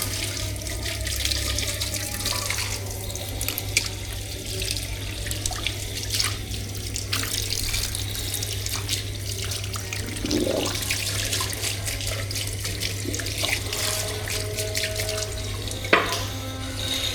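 Tap water running steadily into a sink, with scattered small clinks and knocks and a louder knock near the end.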